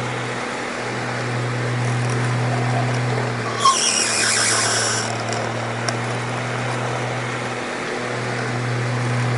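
Oscillating electric fan running with a steady motor hum that swells and fades as the head sweeps. About three and a half seconds in, a squeaky pivot gives one high squeal lasting about a second and a half that sounds like a horse neighing.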